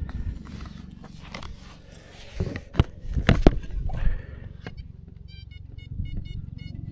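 Digging for a metal-detector target: several sharp scraping strikes of the digging tool into the ground near the middle. Near the end comes a run of short, rapid electronic beeps from the metal detector, about five a second, as it sounds on the target. A steady low rumble runs underneath.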